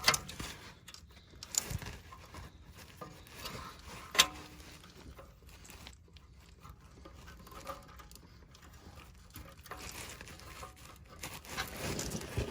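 Light scraping and clicking of metal parts being handled as a parking brake cable end is worked onto its actuator arm, with one sharp metallic click about four seconds in.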